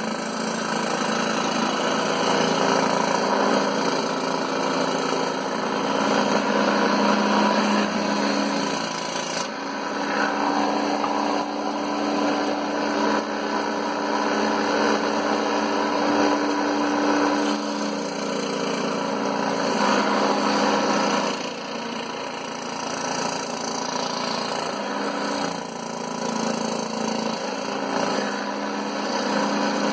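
Scroll saw running and cutting MDF: a steady motor hum under the rasp of the reciprocating blade, which grows and eases every few seconds as the board is fed and turned.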